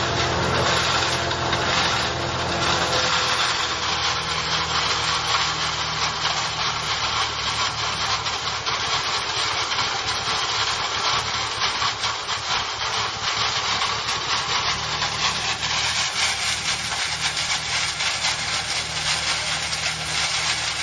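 Tractor engine running steadily while it drives a fodder blower, with a dense rushing noise over the engine's low hum.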